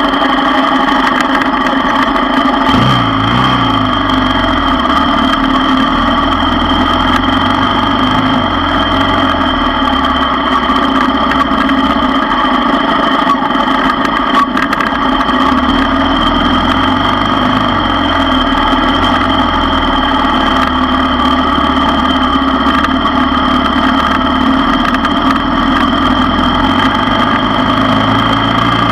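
ATV engine running steadily at low trail speed, its pitch shifting a little with the throttle and dipping about three seconds in.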